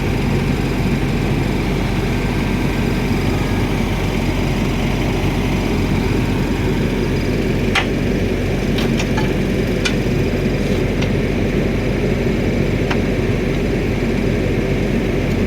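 Diesel engine of a Cat wheeled excavator running steadily, with a few sharp clicks or knocks clustered about halfway through and one more a little later.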